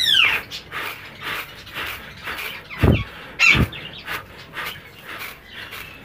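Caged birds calling in an aviary: a whistled call that rises and falls right at the start, then two loud calls sweeping steeply down about three seconds in. Light clicking and rattling runs throughout, from seed being sifted by hand in a plastic feed tray.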